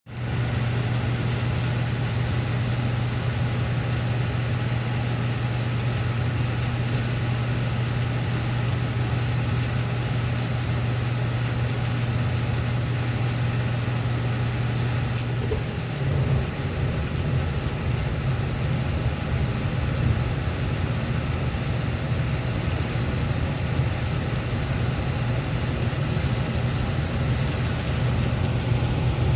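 Heating furnace running: a steady low mechanical hum that turns rougher and less even about halfway through.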